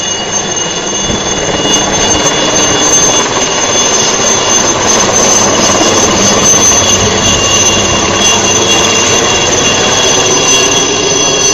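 Helicopter flying low overhead: its turbine gives a steady high whine over dense rotor and engine noise. It grows louder over the first couple of seconds and stays loud as it passes.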